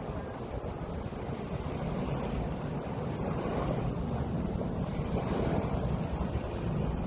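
Sea waves washing onto a beach, a steady surf hiss with rumble, and wind buffeting the microphone. The surf swells a little about three and a half seconds in and again near five and a half seconds.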